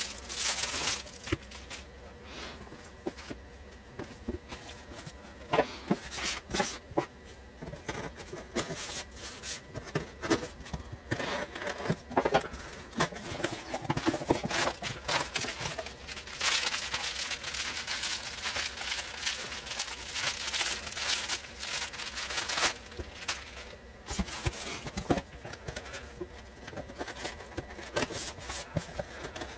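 Packaging being opened and handled by hand: irregular rustling and crinkling with many sharp clicks and taps.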